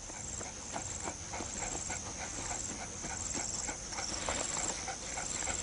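Cheetah panting hard in a quick, even rhythm of short breaths: out of breath after sprinting down and killing its prey.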